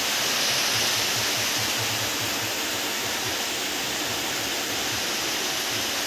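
Steady rushing hiss of background noise, even throughout, with no distinct event.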